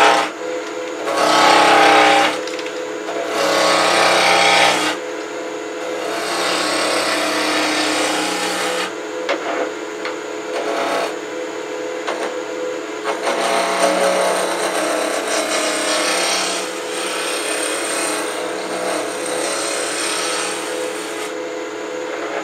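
Wood lathe running at about 1500–1800 rpm while a spindle roughing gouge cuts a spinning spindle blank: a rough hiss of shavings coming off in passes that swell and fade over the lathe's steady hum. The passes are loudest in the first few seconds.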